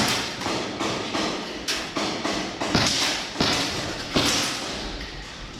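A string of irregular thumps and scuffing noises, a few each second.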